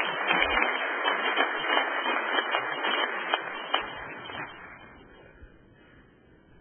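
A congregation applauding in a large hall, the clapping thinning out and fading away about four to five seconds in.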